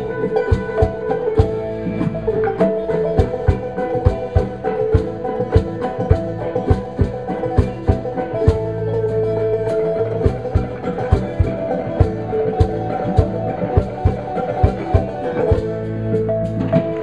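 Live band playing an instrumental passage: five-string banjo, acoustic guitar and a West African ngoni lute over percussion keeping a steady beat.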